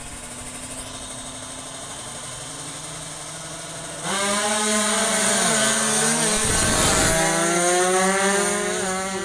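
Two-stroke drag-race motorcycle engines: faint at first, then about four seconds in one gets suddenly loud nearby, its high buzzing pitch climbing with a short dip like a gear change, loudest a little later and easing off near the end.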